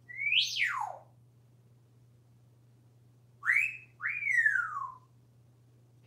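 African grey parrot whistling. First comes a quick whistle that swoops up and then slides far down. A couple of seconds later comes a two-note whistle: a short rising note, then a longer falling one.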